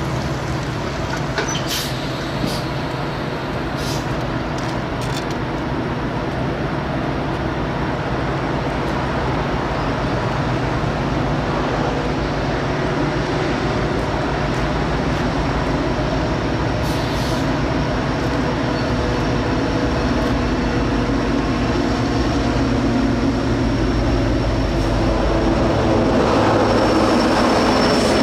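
Diesel freight locomotive engine running with a steady drone, growing gradually louder as it approaches toward the end.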